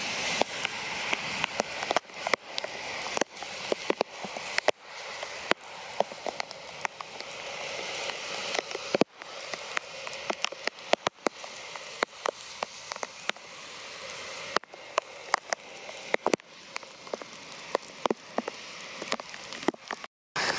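Heavy rain, a steady hiss with many large drops striking close to the microphone as sharp, irregular ticks. The sound cuts out for a moment just before the end.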